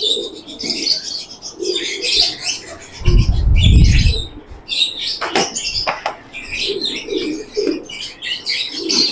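Domestic pigeons cooing, with small birds chirping steadily in the background. About three seconds in, a loud burst of wing flapping lasts just over a second, followed by two sharp knocks a little later.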